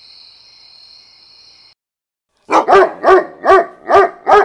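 A steady high cricket trill, which cuts out; then, after a brief silence, a dog barks loudly five times in quick, even succession, about two and a half barks a second.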